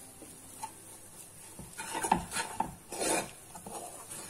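A spoon scraping and stirring a thick coconut burfi mixture around a nonstick pan: quiet at first, then a run of short scraping strokes. The mixture has thickened and is pulling away from the pan, the sign that it is ready to set.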